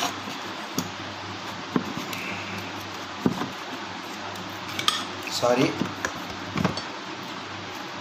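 Metal parts of a Crompton wall fan motor clinking as the end cover is fitted onto the rotor shaft: a few sharp clicks and taps, spaced a second or more apart.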